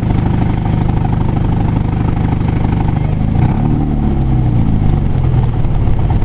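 Car engine and road noise heard from inside the cabin while driving. About three seconds in, the engine's pitch rises and then falls back over a couple of seconds.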